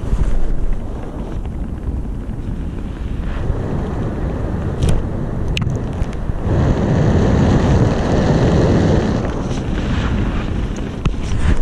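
Wind buffeting the microphone of a skydiver's camera under an open parachute canopy, a steady rushing that grows stronger for a few seconds past the middle, with a few short sharp clicks.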